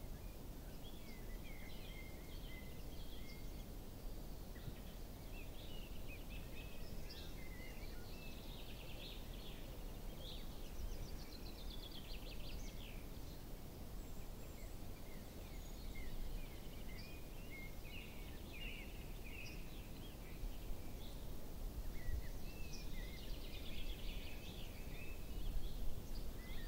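Forest birdsong: several small birds chirping and trilling, including a quick rattling trill, over a steady low rumble of background noise.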